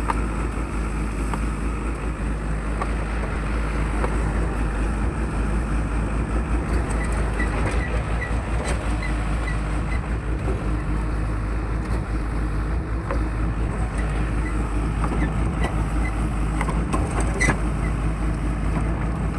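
Heavy machine's engine running steadily with a low, even drone.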